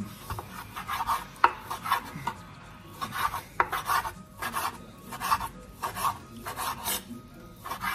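Small knife slicing bacon into thin strips on a wooden cutting board: repeated short cutting strokes, roughly two a second, with the blade tapping the board, one tap sharper about a second and a half in.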